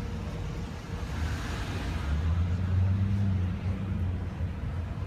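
A motor vehicle's engine running with a low, steady rumble that grows louder about two seconds in.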